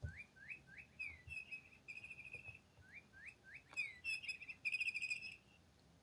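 Electronic bird toy playing its recorded birdsong twice, the same phrase each time: three quick rising chirps, a falling sweep, then a warbling trill.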